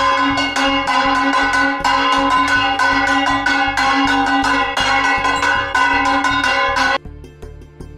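A puja hand bell rung rapidly and steadily, its clapper striking several times a second over a continuous ringing tone. It stops suddenly about seven seconds in, then is struck again near the end and rings on.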